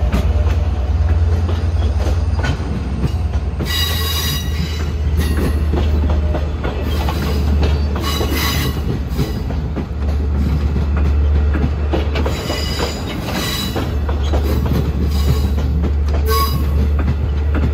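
Long Island Rail Road C3 bilevel passenger coaches rolling past on a curve: a steady low rumble of wheels on rail, with high ringing wheel squeal flaring up four times.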